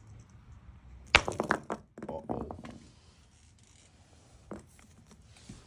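A single sharp hammer blow on a dolomite boulder about a second in as the rock splits open, followed by a quick clatter of broken rock pieces on a concrete floor and a few faint knocks after.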